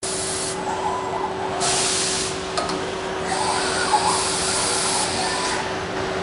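Bacci Master-Win 5-axis CNC working centre running: a steady machine hum with a fixed tone, broken by several long bursts of hissing, with a few light clicks about two and a half seconds in.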